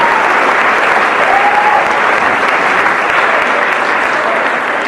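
Audience and performers applauding: dense, steady clapping that eases a little near the end.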